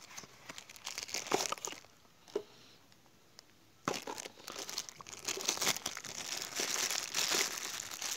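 Cardboard box flaps rustling as the box is opened, then a brief near-quiet pause, then the clear plastic bag around a new oil filter crinkling continuously as it is unwrapped by hand.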